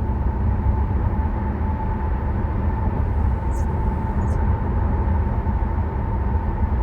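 Steady in-cabin road and drivetrain rumble of a BMW F07 5 Series GT 20d driving along, with its 2.0-litre four-cylinder diesel and tyre noise blending into a constant low drone. Two faint short ticks come a little past the middle.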